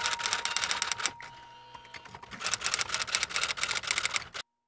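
Typewriter sound effect: rapid key clacks in two runs, with a short lull about a second in, cutting off suddenly near the end.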